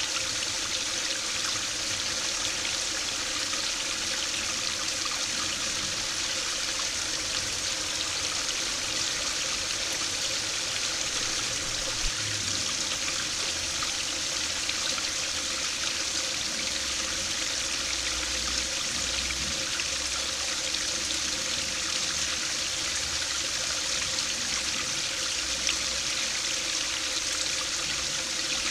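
Small stream spilling over a low stone weir in a thin waterfall, the water splashing and babbling steadily into the pool below.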